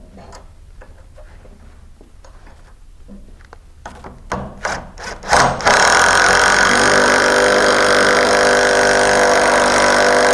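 A few knocks and clicks of metal parts being handled, then, about five and a half seconds in, an impact wrench starts and runs loud and steady, driving a bolt tight against another bolt in a fastener strength test.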